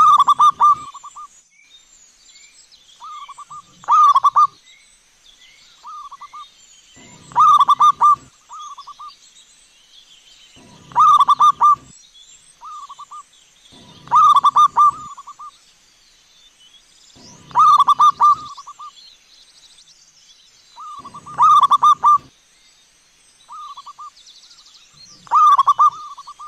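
Zebra dove (perkutut) singing: a loud phrase of several quick coos repeats about every three and a half seconds, with a shorter, softer coo phrase in between. Other small birds chirp faintly behind it.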